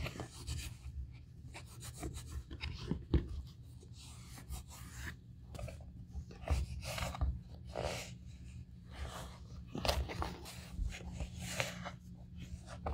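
A cloth wiping and rubbing dust off the edges of a grained leather handbag: irregular soft swishes and rubs of fabric on leather, with a steady low hum underneath.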